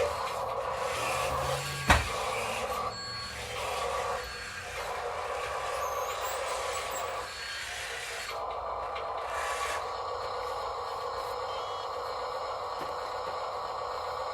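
Radio-controlled construction machines working, with the steady whine of their small electric motors and one sharp knock about two seconds in.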